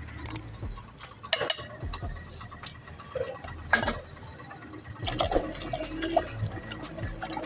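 Liquid being poured and sloshed, with a few sharp clicks or knocks.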